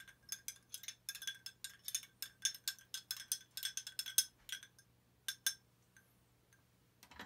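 A metal spoon stirring ice cubes in a drinking glass: quick, irregular clinks of spoon and ice against the glass, which stop after about four and a half seconds, followed by two last clinks.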